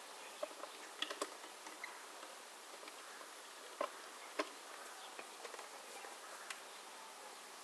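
Honeybees buzzing around open wooden hives, with several sharp knocks and clicks of hive parts being handled, the loudest a little under four and four and a half seconds in.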